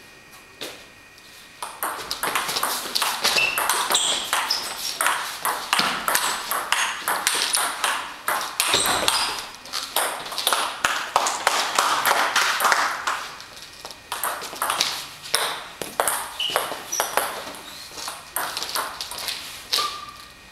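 Table tennis ball being hit back and forth in quick rallies: sharp, rapid clicks of the ball off the paddles and the Stiga tabletop, starting about two seconds in. A few short high squeaks come through between the hits.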